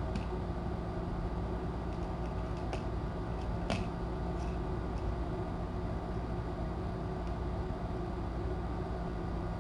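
Steady low hum and hiss of room noise, with a few faint ticks, the clearest about four seconds in.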